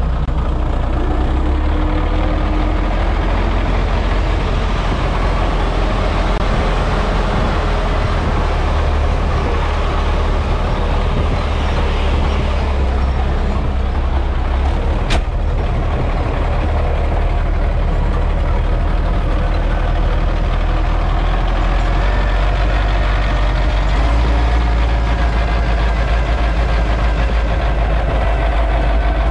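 MTZ tractor's diesel engine running steadily, heard from inside the cab as it drives across a field. A single sharp click about halfway through.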